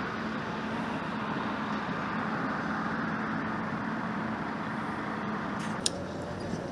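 Steady machinery noise with a low, even hum, and one sharp click near the end.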